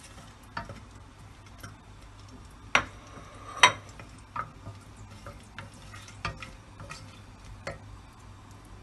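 Wooden spatula stirring whole spices and dried red chillies in hot mustard oil in a pot: scattered light clicks and taps, with two sharper ones about three and four seconds in.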